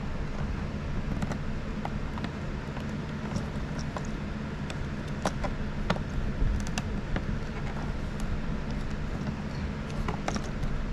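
Scattered small clicks and taps of a hand tool working screws out of the plastic housing of a 3D-printer filament unit, over a steady low hum.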